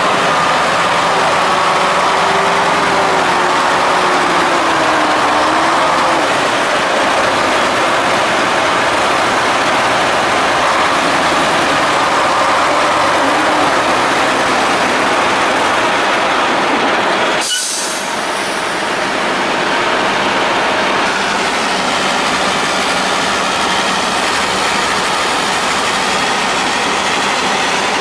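Ural-4320 6x6 truck's diesel engine running hard under load as the truck pushes through deep mud, a steady heavy noise with a wavering whine over the first few seconds. A sharp click and a brief dip come a little past halfway, then the same steady running.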